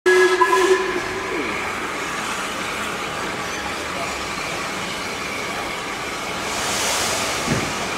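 WD Austerity 0-6-0 saddle-tank steam locomotive starting its train away, with a steady loud hiss of steam that swells briefly near the end. A short, loud pitched sound comes at the very start.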